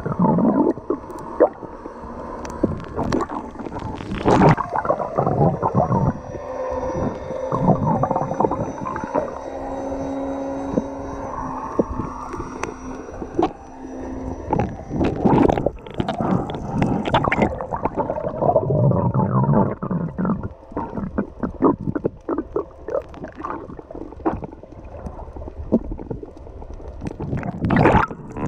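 Muffled underwater sound at the camera: water sloshing and gurgling, with many scattered knocks and clicks, and a steady hum for several seconds in the middle.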